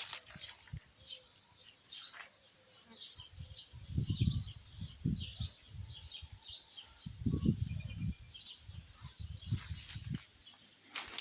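Small birds chirping in quick, short calls, with two low muffled rumbles about four and seven seconds in.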